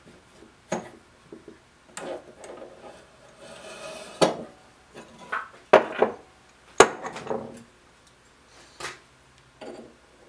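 Wood and metal knocks and clinks as a drill chuck is worked off a mini drill press spindle with a wooden block and handled. They come as a string of separate knocks with short scrapes between them, the loudest a few seconds in.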